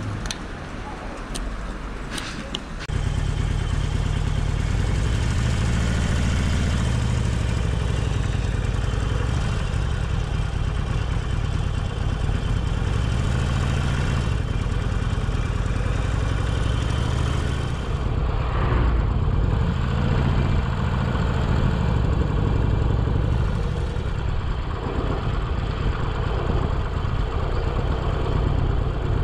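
A few clicks as the fuel cap is locked with its key, then about three seconds in the Harley-Davidson Forty-Eight's air-cooled V-twin starts. It runs as the bike pulls away and rides, its note rising and falling again and again with the throttle.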